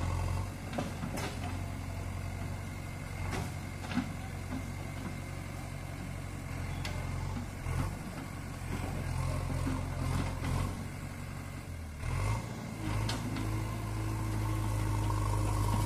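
JCB backhoe loader's diesel engine running steadily as it works its digging arm, with a few short knocks along the way. A little after twelve seconds in, the engine revs up and runs higher and louder.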